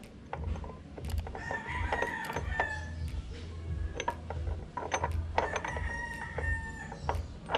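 A rooster crowing twice, each a long held call of a second or two, over scattered light metal clicks of transmission gears being fitted into a scooter's gear case.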